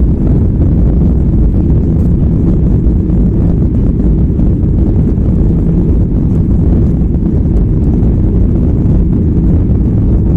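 Cabin noise of a SpiceJet Boeing 737 accelerating down the runway for takeoff: a loud, steady, deep rumble of the jet engines and rolling wheels heard from inside the cabin.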